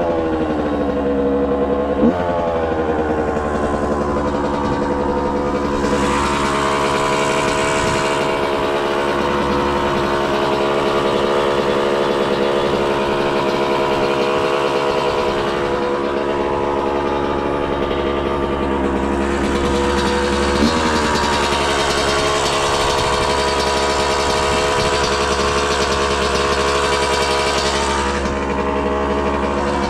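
Dirt bike engine running steadily under way, its pitch stepping down a few times: near the start and again about two-thirds of the way through.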